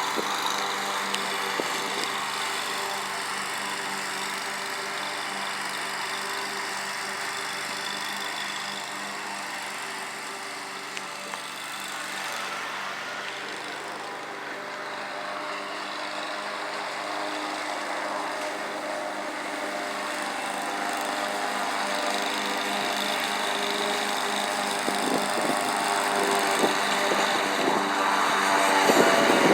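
Country Clipper zero-turn riding mower running steadily under load, the engine hum and the cutting deck's rushing noise continuous. It grows somewhat louder near the end.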